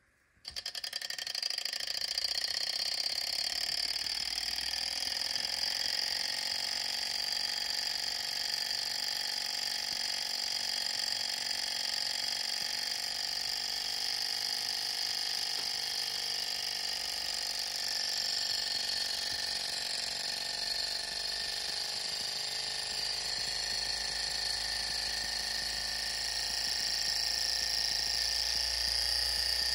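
A small desktop hot-air (Stirling) engine model starting up about half a second in, spinning up over the first couple of seconds, then running with a steady, high mechanical whir.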